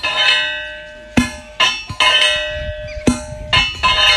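Long pestle pounding kava root in a metal tube mortar: about ten uneven strikes, each clanging and ringing like a bell.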